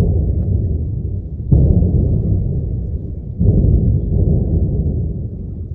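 Distant heavy explosions from a Grad rocket barrage: three sudden booms about one and a half to two seconds apart, each trailing off into a long rolling rumble.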